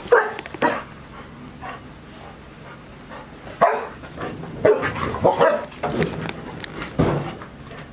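Dogs barking: two barks at the start, a pause of about three seconds, then a run of barks in the second half.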